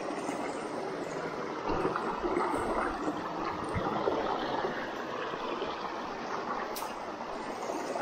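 River water rushing over rocks in a steady wash, with a few low knocks between about two and four seconds in and a sharp click near the end.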